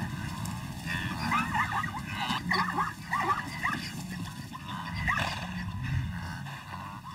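Plains zebras calling: a quick run of short, yelping bark-like calls that thins out after about five seconds.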